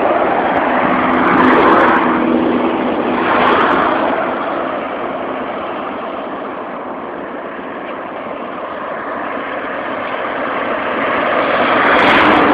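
Road traffic on a highway: vehicles driving past one after another, the noise swelling and fading as each goes by, with a low engine drone in the first few seconds. It is quietest about halfway through and builds again near the end.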